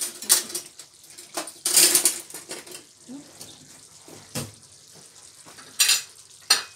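Crockery and kitchen utensils clattering and scraping in a few short bursts, with a sharp knock a little past the middle, as plates are handled.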